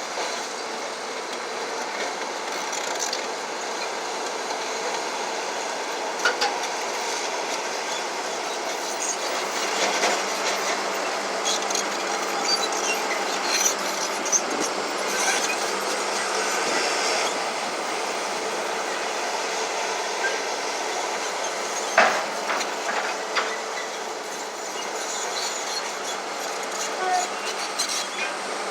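Crawler bulldozer working, its steel tracks clanking and squealing over the running diesel, with scattered sharp knocks, the loudest about two-thirds of the way through.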